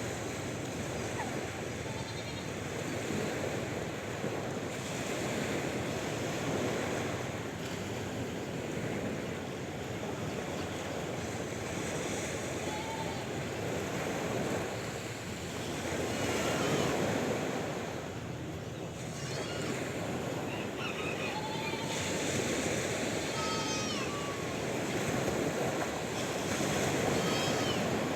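Sea waves washing in and drawing back in slow swells, with faint short animal calls now and then over the surf.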